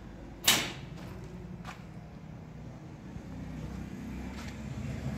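Mahindra Arjun tractor's diesel engine idling with a steady low hum. A single sharp clack about half a second in and a couple of fainter clicks later.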